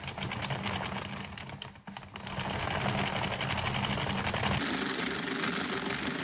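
Hand-cranked circular knitting machine running as it knits rounds of scrap yarn: a fast, steady clatter of needles and crank, with a brief let-up about two seconds in.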